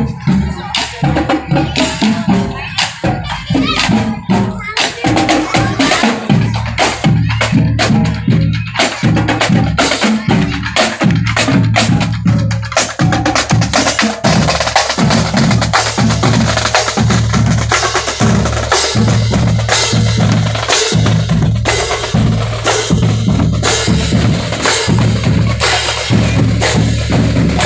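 Marching drumline playing: bass drums and snare drums beating a fast, steady rhythm with rolls. A low steady tone sits under the drums from about halfway.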